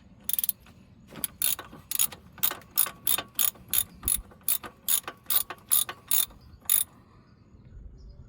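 Socket ratchet clicking in a quick run of short strokes, about two to three a second, as a wheel hub bolt is turned out; it stops about two-thirds of the way through.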